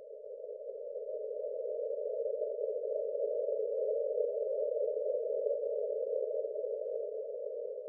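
Synthetic breath-pacing sound: a hum-like band of filtered noise at one steady pitch that swells to its loudest about halfway through and then fades. It marks one long phase of a slow breathing cycle.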